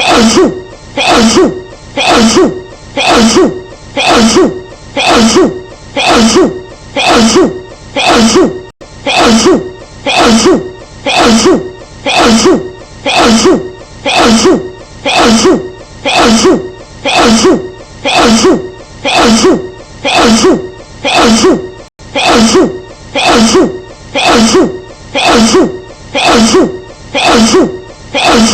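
A woman's sneeze edited into a tight loop, the same sneeze repeating about once a second with an even rhythm.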